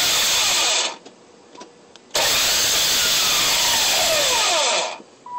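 Nissan 300ZX (Z32) starter motor spinning loudly with a harsh whir while the engine does not crank over, in two bursts (the second about three seconds long), its pitch falling as each one winds down: the starter turns without turning the engine, which the owner suspects is a starter or flywheel problem. A short beep sounds at the very end.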